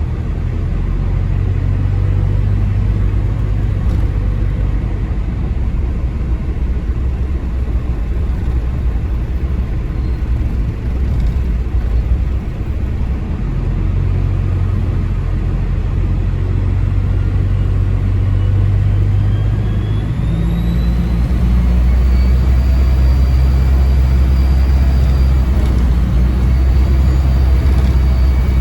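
Bus diesel engine running with a steady low drone. About two-thirds of the way through it pulls harder, and a high turbocharger whistle rises in pitch and then holds.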